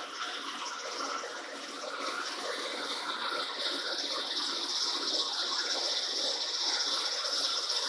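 Warner & Swasey turret lathe drilling through a spinning plate with a spade drill under flood coolant: a steady wash of splashing coolant over the running machine and the cut, with a high hiss that grows stronger about halfway through.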